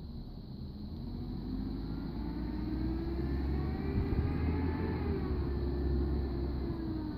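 Recycling truck's engine running as the truck comes up the street, growing louder, its pitch rising and then falling back over several seconds.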